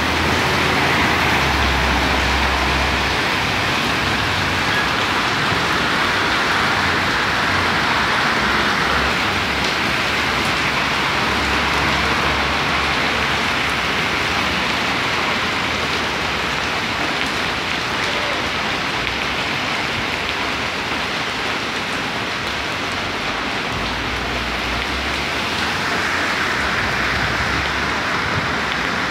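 Heavy rain pouring steadily onto a flooded street, with traffic driving through the standing water. The passing vehicles make low rumbling swells three times: near the start, about halfway, and near the end.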